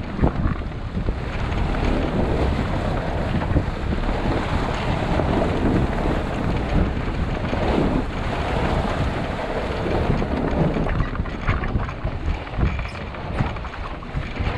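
Strong wind buffeting the microphone over water rushing along a sailboat's hull, swelling and easing every few seconds.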